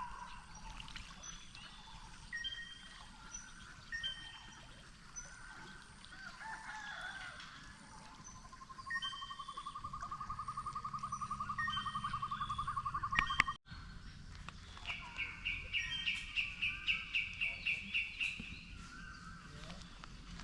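Forest birds calling: many short high whistled notes from several birds, with a fast rattling trill about halfway through and a higher one after a brief dropout, over a faint steady background.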